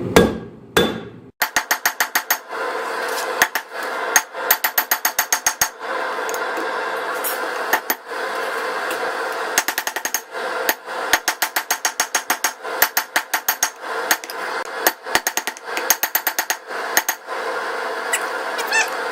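Hand hammer striking hot 5160 spring steel on an anvil, squaring up the bar: quick runs of ringing blows, several a second, with short pauses between runs, over a steady rushing noise.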